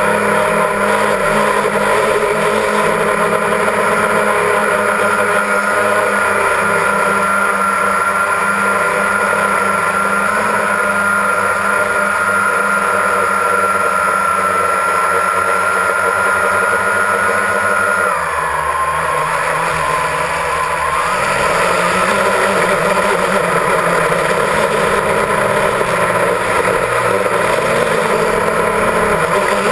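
Electric motors and propellers of a multirotor drone whining steadily at close range. The pitch drops suddenly about two-thirds of the way through, as the motors slow.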